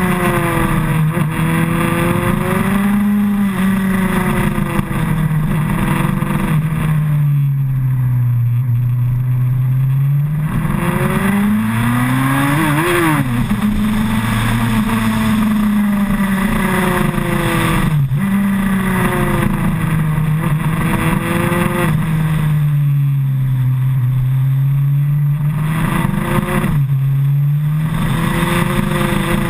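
2008 Suzuki Hayabusa's 1340 cc inline-four engine heard from a bike-mounted camera while riding a winding road. The engine note rises and falls every few seconds as the rider gets on and off the throttle through the curves, with a sharper climb and sudden drop about halfway through.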